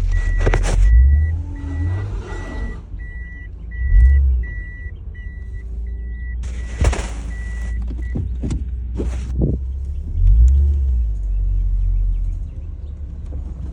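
A 1991 Toyota Soarer's engine running with a low rumble that swells three times, in a car that suddenly will not drive forward. An electronic warning chime beeps about one and a half times a second and stops about two thirds of the way through, and several loud bursts of hiss are heard.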